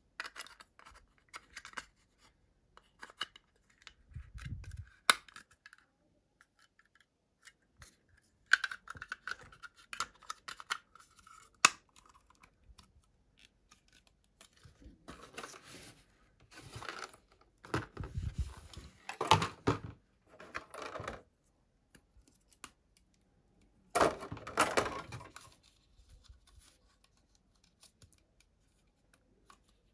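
Plastic parts of a Bandai snap-fit model kit being handled and pressed together. There are scattered sharp clicks, the loudest about five and twelve seconds in, and stretches of plastic rubbing and scraping as pieces are turned and fitted.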